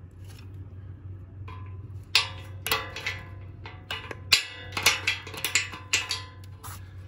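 About a dozen sharp metal-on-metal clinks and taps, irregularly spaced and starting about two seconds in, each ringing briefly: bolt, washer and nut hardware being worked by hand against a Warn stubby steel bumper's mounting bracket.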